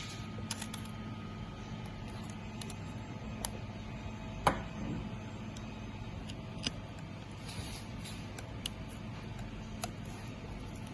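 Small clicks and taps of tools and parts being handled during a fusion splicer repair, one louder click about four and a half seconds in, over a steady low hum.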